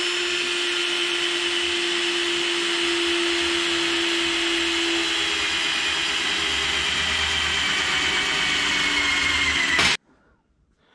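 Electric drill with a quarter-inch bit running steadily while boring through the sheet-steel bottom of a 55-gallon drum. The motor tone holds steady, sags slightly in pitch toward the end, then cuts off abruptly.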